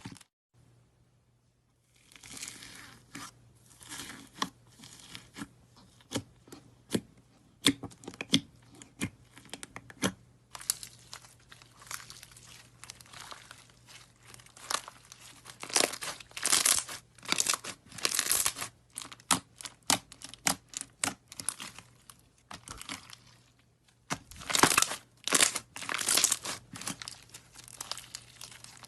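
Slime being squeezed and stretched by hand, making a run of sticky crackling pops and clicks, in denser, louder flurries about halfway through and again near the end. A faint low hum lies under most of it.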